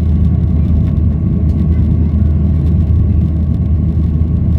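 Steady, loud cabin rumble of a Boeing 737-800 in flight shortly after take-off, its CFM56-7B turbofan engines running at climb power, with a faint steady whine above the rumble.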